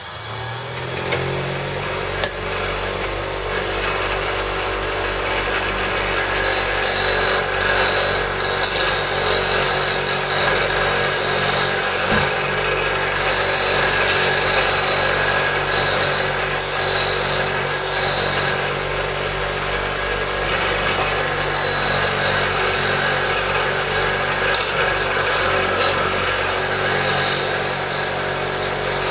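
Bench grinder spinning up about a second in, then running steadily while its wheel grinds cured metal putty on a shotgun magazine tube down flush, the grinding noise coming and going as the tube is worked against the wheel.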